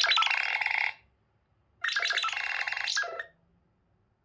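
Nothing Phone (1) playing a ringtone preview through its built-in speaker: two short electronic phrases of about a second each, with a short pause between them.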